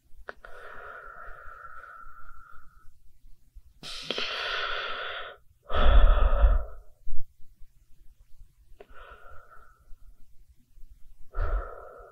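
Human breathing, heard close up: five separate breaths with pauses between them. The loudest, about six seconds in, carries a low rumble of breath hitting the microphone.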